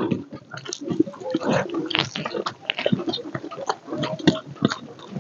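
Close-miked chewing and wet mouth sounds of a person eating rice and chicken curry by hand, with irregular short clicks and smacks, and fingers working rice on a steel plate.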